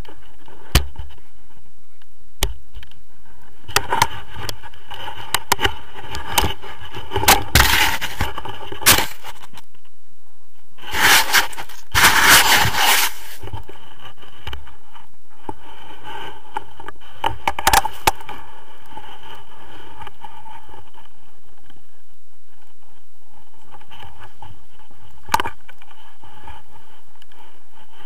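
Snow crunching and scraping against an action camera as it is pushed and dragged through the snow, with sharp knocks on the housing. The noise comes in two busy bunches, one before the middle and one just after it, with single clicks later on.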